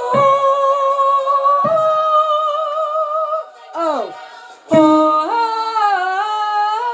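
A singer singing the alto part unaccompanied, holding notes with vibrato that step up twice. Near the middle comes a short falling slide, then a new phrase starts low and climbs in steps.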